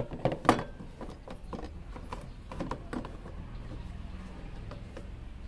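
Hard plastic scooter body panel knocking against the metal frame as it is handled into place: a quick run of sharp knocks in the first second, then a few lighter ones.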